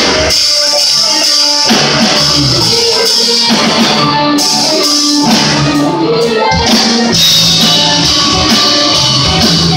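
Live progressive rock band playing loudly: electric guitars, bass, drums and keyboards, with the full band coming in together at the start.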